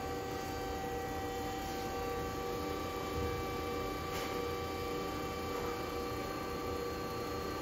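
Steady electric machine hum with several fixed tones over a low rumble, from an Amada HA-16S horizontal band saw running with no cut being made. There is a faint tick about four seconds in.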